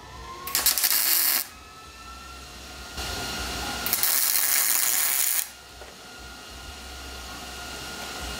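A MIG welder crackling through two short welds on steel. The first starts about half a second in and lasts about a second; the second starts about four seconds in and lasts about a second and a half.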